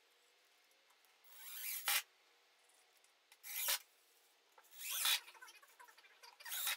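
Cordless drill boring into pressure-treated pine decking boards: four short grinding runs, each building up and then stopping sharply.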